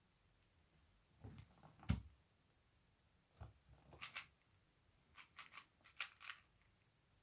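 Plastic 4x4 puzzle cube being turned by hand: its layers click and clack in short runs of quick moves with brief pauses between.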